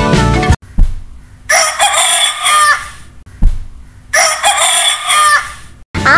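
A rooster crowing cock-a-doodle-doo twice, each crow lasting just over a second and ending on a falling note. A short sharp click comes before each crow.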